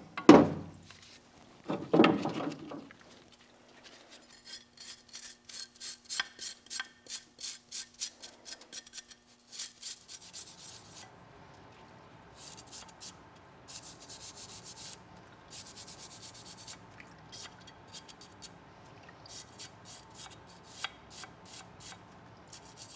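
Metal blade-shear parts being scrubbed and rubbed by hand in a solvent parts washer, in quick scraping strokes, with two louder clunks in the first two seconds. A faint steady hum sits under the scrubbing in the second half, from the washer's circulating pump.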